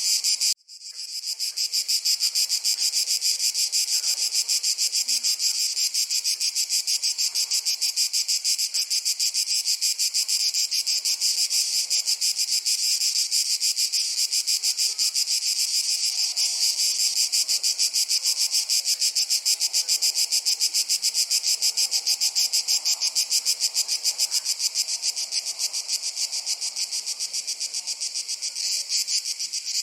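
Dense chorus of summer insects making a high, rapid, evenly pulsing sound. It cuts out for a split second about half a second in, then resumes.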